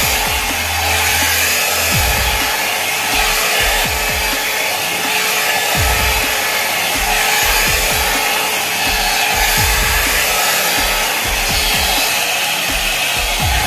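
Electric 3-in-1 hair styler running with a steady blowing hiss like a hair dryer, with soft low bumps as it is handled and drawn through the hair.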